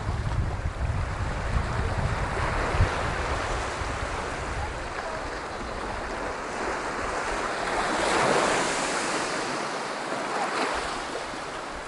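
Sea waves washing onto a beach, with wind buffeting the microphone as a low rumble in the first few seconds. A wave swells and washes in about eight seconds in.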